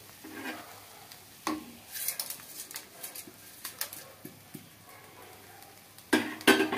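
Light clinks and scrapes of a metal blade against the pan as hands pick through the cooked leaf mixture. A brief voice-like call near the end is the loudest sound.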